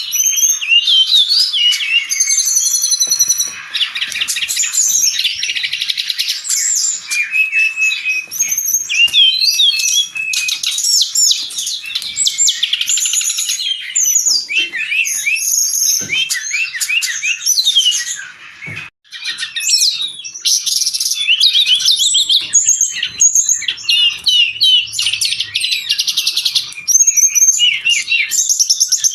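Brown-chested jungle flycatcher singing: a fast, unbroken stream of high chirps and warbled phrases, with one short break about two-thirds of the way through.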